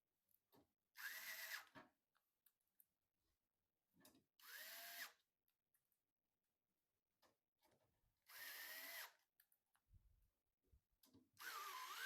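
Small electric screwdriver run in four short bursts of under a second each, its motor whine rising and falling every time.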